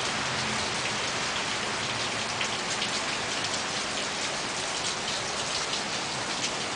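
Heavy rain pouring steadily, a dense even hiss with many individual drops ticking on nearby surfaces.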